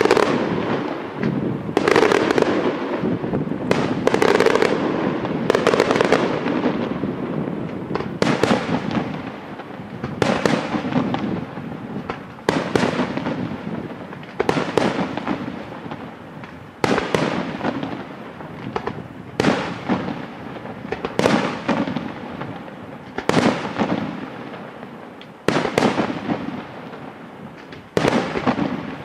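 Aerial firework shells bursting overhead in a steady sequence, a sharp bang about every two seconds. Each bang trails off over a second or so.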